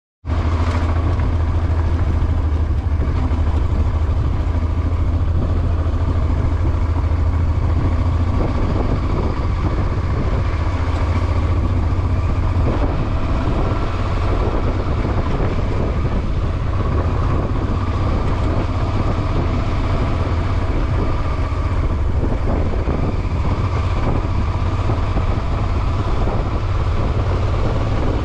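Motor vehicle running steadily: an even low hum with a broad rush of noise over it, holding the same level throughout.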